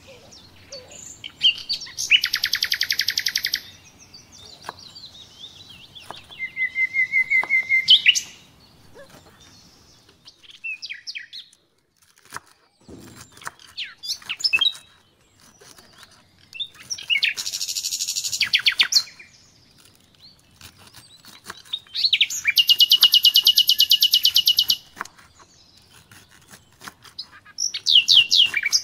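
A songbird singing loud phrases of rapid trills, about five times, with faint short chirps between. Under it, light clicking of a kitchen knife slicing cabbage on a wooden cutting board.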